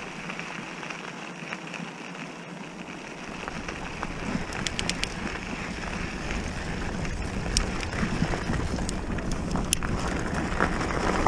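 Mountain bike tyres rolling over a gravel and dirt trail, a steady crunching hiss that grows a little louder about four seconds in, mixed with wind on the microphone. A few sharp ticks, about five, seven and a half and ten seconds in, of grit or stones snapping under the tyres.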